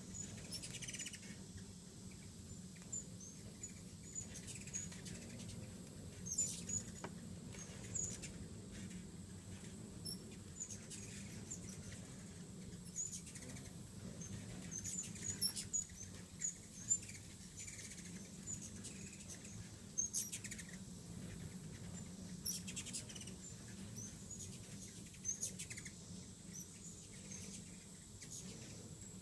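Hummingbirds chittering at feeders: many short, high, squeaky chips and twitters, scattered irregularly, over a low steady hum.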